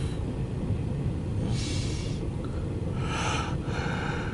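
Intermodal freight train's container well cars rolling past: a steady low rumble of wheels on rail, heard from inside a car, with two brief hissing swells.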